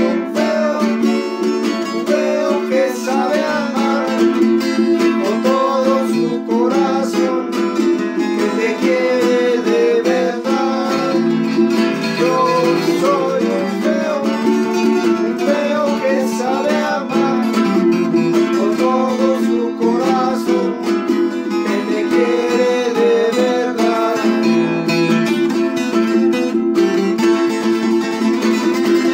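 Two acoustic guitars strummed and picked together in a rhythmic accompaniment, with a man singing the melody over them.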